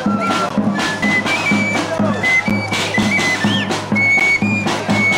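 A small flute and a double-headed drum playing a traditional procession tune: a shrill, stepwise flute melody over a steady drum beat.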